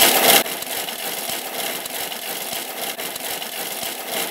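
Thermomix blender running at maximum speed, chopping and grinding a thick, dry mix of dates, dried fruit and nuts. The sound is loudest at the start, then drops abruptly to a lower, steady whir about half a second in.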